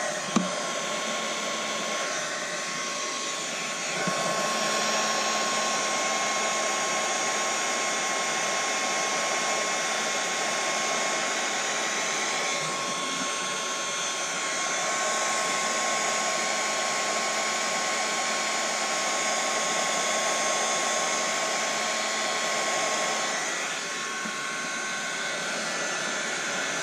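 Small handheld heat gun running steadily, blowing hot air to shrink heat-shrink tubing over wire joints, with a thin steady whine over the blowing.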